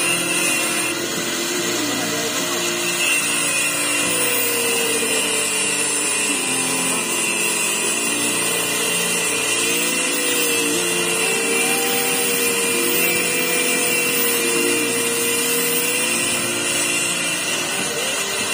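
Angle grinder with a cutting disc running steadily as it cuts through steel reinforcing bar, its whine wavering a little in pitch under load.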